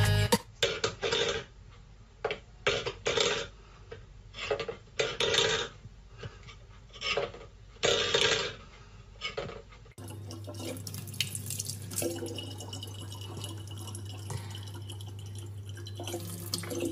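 Metal bowls clattering on a wooden floor in a string of uneven knocks as a cat paws at them. About ten seconds in, a tap starts running steadily.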